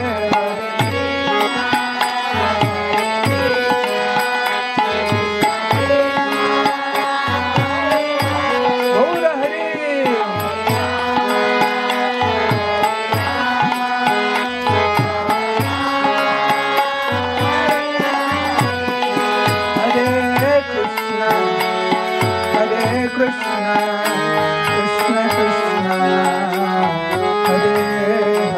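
Kirtan music: a Jubilate harmonium holding sustained chords under a hand drum beating a steady rhythm, with a man's voice chanting in places.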